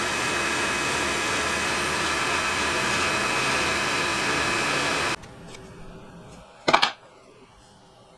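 A power tool's electric motor running steadily, stopping abruptly about five seconds in; a single sharp knock follows a second and a half later.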